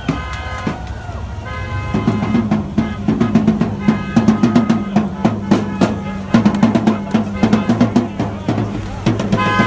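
A drum beaten in a fast, steady marching rhythm by a marching column of protesters. From about two seconds in, steady pitched tones sound along with the drumming.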